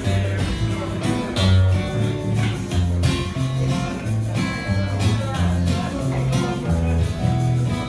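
Live band playing a song's instrumental intro, led by guitar over a moving low bass line with a steady beat.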